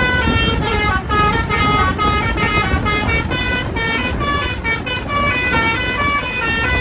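Telolet basuri bus horn playing a quick melody of stepping multi-tone horn notes, several notes a second, over a steady noisy rumble.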